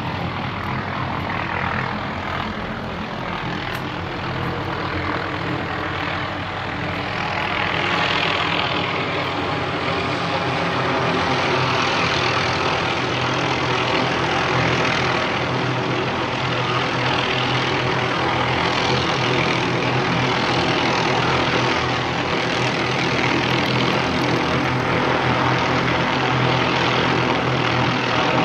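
Low-flying light helicopter overhead, its rotor and engine running steadily. It grows louder about a quarter of the way in as it comes closer.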